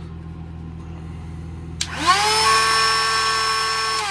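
Hart compact router switched on with a click about two seconds in, its motor spinning up in a rising whine to a steady high pitch, running unloaded with no cut. Near the end it is switched off and the whine falls as the motor winds down.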